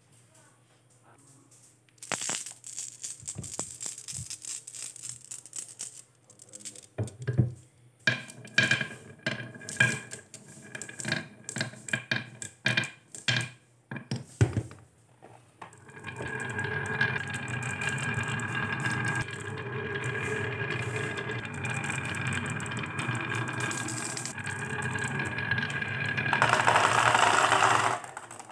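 Glass marbles being set down one by one with sharp clicks in a carved wooden track, then a long steady rumble of the marbles rolling down the wooden zigzag slope. The rolling grows louder near the end as the marbles clatter into a plastic toy dump truck's bed, then stops suddenly.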